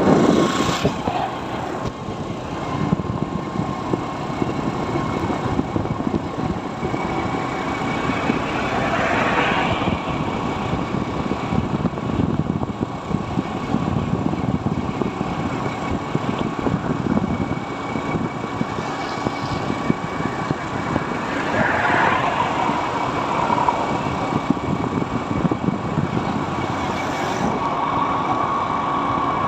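Motorcycle riding along a rough, wet road: the engine runs steadily under road and wind noise, with a couple of louder swells about a third of the way in and again about three-quarters through.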